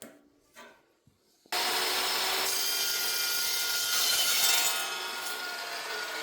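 A power tool cutting through 1/8-inch-thick steel flat stock. It starts suddenly about a second and a half in, after a couple of light taps, and runs steadily, a little quieter in the second half.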